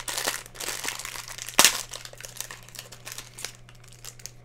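Blind-box toy packaging crinkling and tearing as it is handled and opened, with one sharp loud crackle about a second and a half in; the crinkling dies down near the end.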